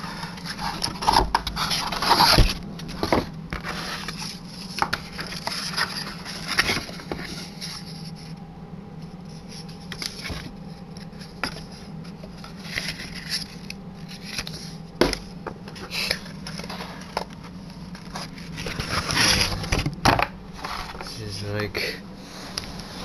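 Cardboard laptop box and its paper packaging being handled and unpacked: irregular scraping, rustling and light knocks, over a steady low hum.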